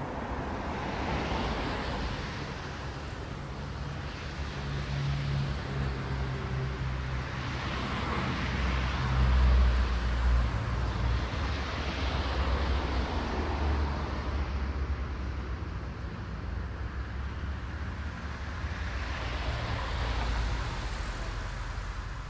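Road traffic: several cars pass one after another, the tyre and engine noise swelling and fading with each, over a steady low rumble. The loudest pass comes about ten seconds in.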